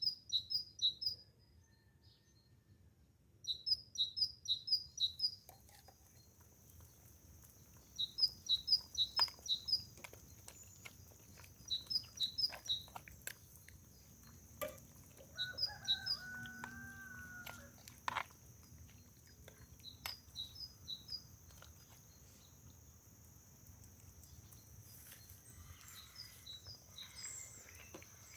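A small songbird repeating a short run of high chirps every few seconds. A steady high whine sets in about five seconds in, and a lower, wavering call is heard about halfway through.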